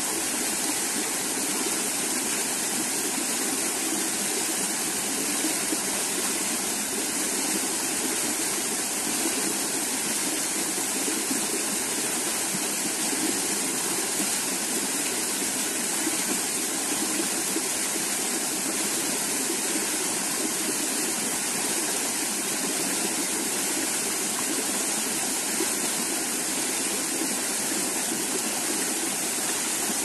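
Small woodland stream running steadily, an even rushing of flowing water.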